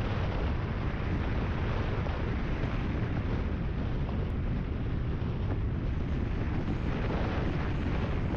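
Steady low rumble of a vehicle under way, with wind on the microphone.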